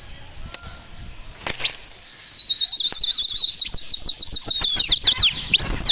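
A pigeon flier's loud, shrill whistle: first held on one steady high note, then warbled in a fast trill of about seven wavers a second, then a quick swoop up and down near the end. Pigeon wings flap and clap underneath it.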